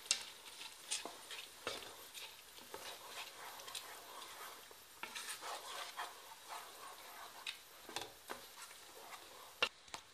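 Wooden spatula stirring thick glutinous rice, mung beans and coconut milk in a non-stick pan, with irregular scrapes and knocks against the pan as the sugar is mixed in.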